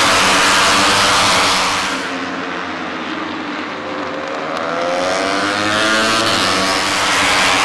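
Moto3 racing motorcycles' 250 cc single-cylinder four-stroke engines running hard as bikes lap the circuit. The sound drops back about two seconds in, then an engine note climbs in pitch as a bike accelerates, growing louder near the end as it passes close.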